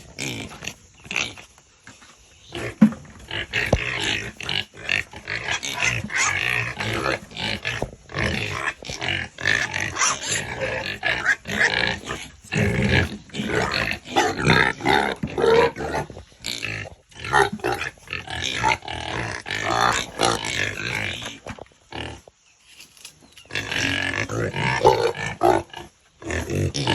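Several pigs grunting and squealing in an irregular, overlapping stream, with brief lulls about two seconds in and again near the end.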